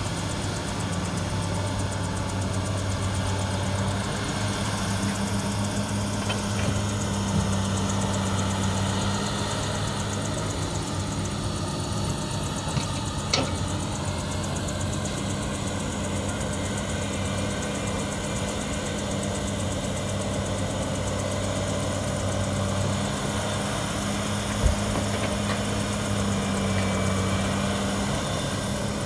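Hydraulic excavator's diesel engine running steadily as it digs and loads a dump truck, a constant low hum with a couple of brief knocks from the working machinery.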